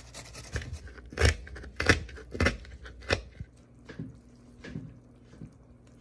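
Crab shells being cut or cracked apart during cleaning: four sharp snaps about two thirds of a second apart, then a few fainter ones.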